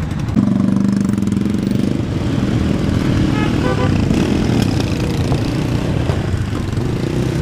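Several cruiser motorcycle engines running together as the group rides off, a steady low rumble, with one engine holding a steady note for the first couple of seconds. A brief run of short beeps sounds about three and a half seconds in.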